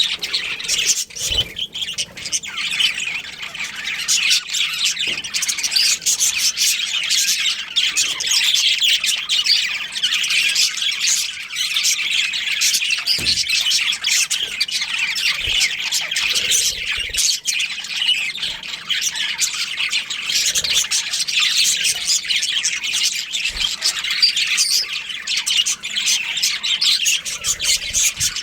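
A colony of budgerigars chirping and chattering, many birds at once in a dense, continuous chatter.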